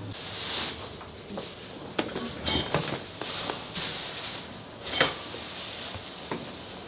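Clothes rustling as garments are pulled from a hard-shell suitcase and shaken out, with a swish about half a second in and a few sharp clicks and knocks. The loudest knock comes about five seconds in.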